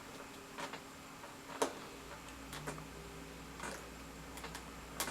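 Scattered, irregular small clicks and taps from handling the model's plastic parts and wiring connectors, the sharpest about a second and a half in and near the end. A faint low hum comes in about two seconds in.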